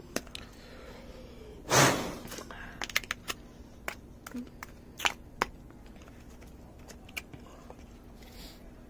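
Metal spoon packing snow into a plastic ice-pop mould, with a scatter of sharp clicks and taps of spoon and plastic, most of them between about three and five and a half seconds in. A loud short rushing noise comes about two seconds in.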